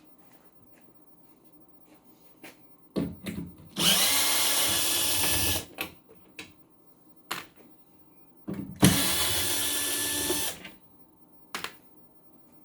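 Handheld power drill running in two bursts of about two seconds each, with scattered clicks and knocks of handling in between.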